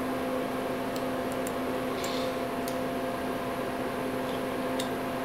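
Steady machine hum, with a few faint, light clicks of the steel parallels under a brass tube being handled and tapped in the milling vises.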